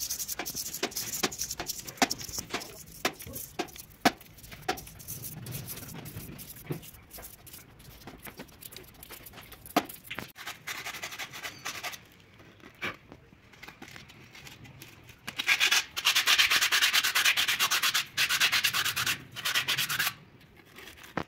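Small stiff-bristled brush scrubbing a car starter motor's armature and copper commutator to clean off dirt and particles, scratchy strokes with small clicks. Near the end comes a few seconds of fast, louder scrubbing.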